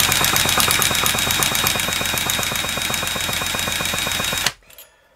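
Small nitro glow-plug engine of an HPI Firestorm RC car running with fast, even firing and a steady high whine, then cutting out abruptly about four and a half seconds in.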